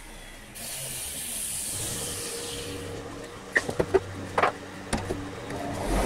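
Electric bench grinder running with a steady motor hum, a hiss in the first half, and a few sharp clicks and short squeaks around the middle.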